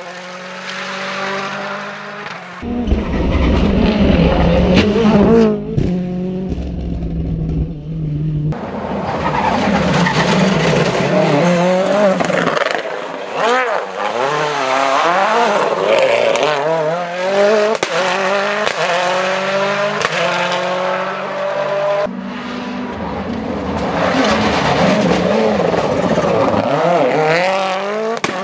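Ford Fiesta RS WRC rally car's turbocharged 1.6-litre four-cylinder engine revving hard, its pitch climbing and dropping again and again through gear changes as the car passes on tarmac, over several separate passes.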